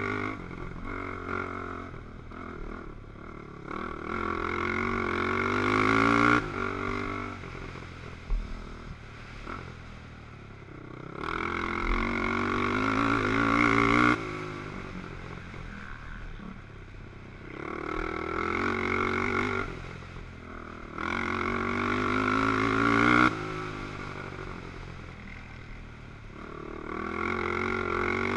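ATV engine at racing speed, revving up and falling back again and again: the pitch climbs for a few seconds, then drops off sharply, about five times, heard from on board the quad.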